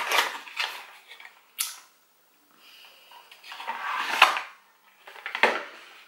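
Cardboard box being opened and handled, rustling and scraping in a few short bursts, the loudest about four seconds in.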